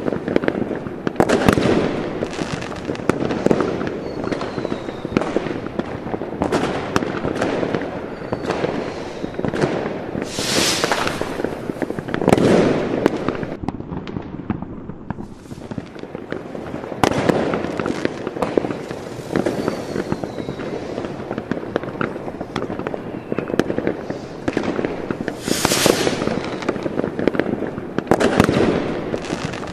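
Fireworks and firecrackers going off: many sharp bangs and crackling, with a longer hissing burst every few seconds and a short lull about halfway through.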